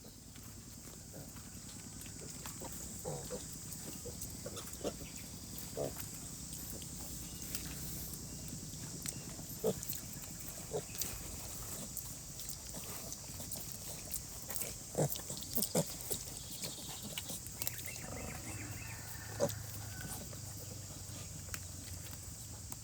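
Pigs grunting briefly now and then, over a steady hiss of falling rain.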